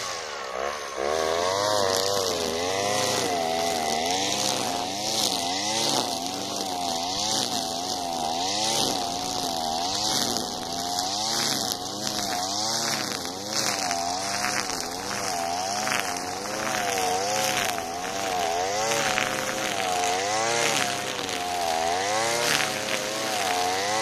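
Alpina Star 55DP petrol brushcutter's two-stroke engine running at high revs, its pitch rising and falling about every second and a half as the line head swings through the grass under load, with a brief drop in revs about half a second in. A hiss from the 3 mm square nylon line cutting grass runs over the engine sound.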